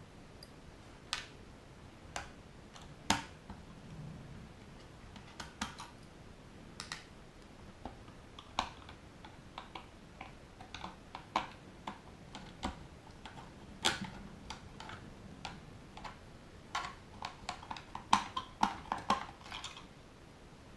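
Scattered small clicks and ticks of a 2 mm hex driver working screws out of a DJI Phantom 2's plastic body shell, irregular, with a cluster of quicker clicks near the end.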